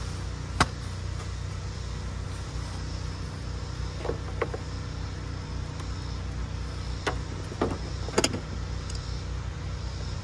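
A steady low hum with a few scattered light clicks and knocks, including a short cluster of clicks about eight seconds in. There is no engine cranking or running.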